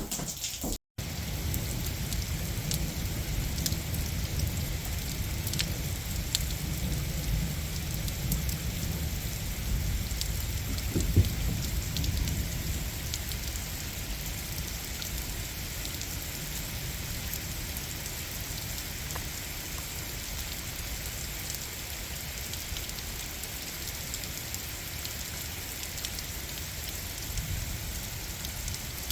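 Heavy rain pouring down, a steady hiss with scattered sharp drop hits, under a low rumble of thunder that is strongest in the first half and swells to a peak about eleven seconds in, then eases.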